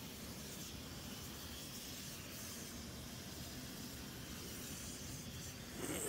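Propane torches burning with a steady hiss as they heat a train wheel's steel tire to expand it for removal. A brief, louder sound comes right at the end.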